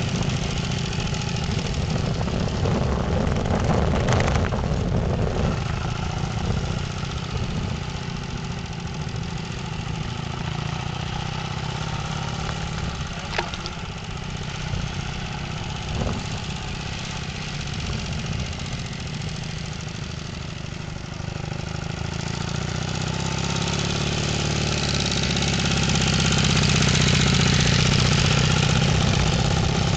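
A motorcycle engine running at low speed as the bike is ridden around, with a steady low drone that swells louder over the last several seconds.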